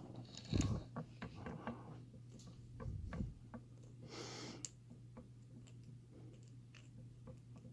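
Faint, irregular small clicks and scrapes of a lock pick and tension wrench working the pin stack of an American Lock 5200 padlock, with a soft thump under a second in and a short hiss about four seconds in.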